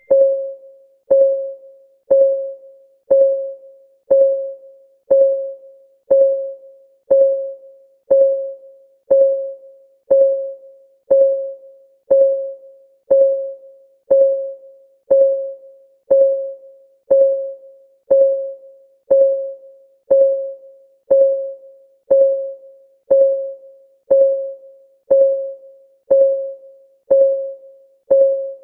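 Synthesized clock-tick sound of a countdown timer: a short pitched tick, once a second, each fading quickly.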